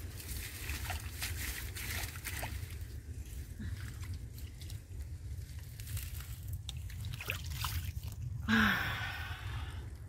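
Crackling and rustling of dry reeds and a wet cast net as a fish is worked free of the mesh by hand, many small irregular clicks over a steady low rumble. About eight and a half seconds in comes a short, louder rush.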